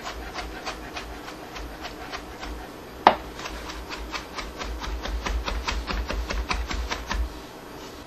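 Chef's knife chopping ginger on a cutting board: a run of quick knocks of the blade on the board that speeds up to about five a second in the second half, with one sharp, louder knock about three seconds in. The chopping stops shortly before the end.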